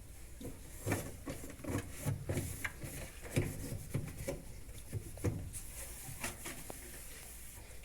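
Hand-cleaning of a washing machine's outer body: irregular scrubbing and wiping strokes with light knocks, several a second.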